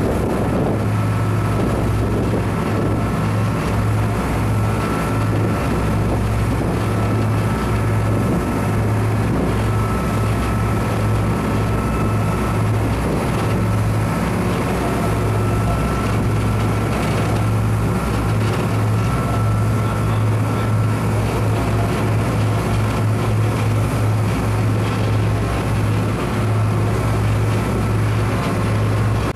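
A ship's engines running with a steady low drone, under a constant even rushing hiss.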